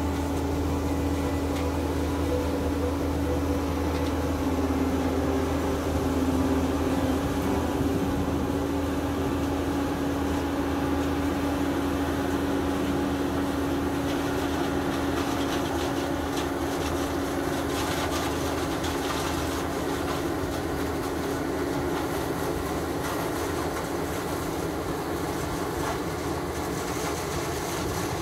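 John Deere 1450 CWS combine harvester running under load while harvesting maize with a six-row Olimac Drago corn header: a steady machine drone with a strong held hum over a low rumble. From about halfway a rough crackle joins in. The drone eases off slightly near the end as the machine moves away.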